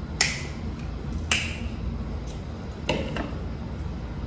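Sharp snaps of king crab leg shells being cut with kitchen scissors and cracked by hand, a handful of them roughly a second apart, the last two close together.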